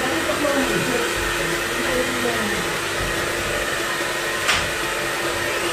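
Handheld hair dryer running steadily, with one sharp click about four and a half seconds in.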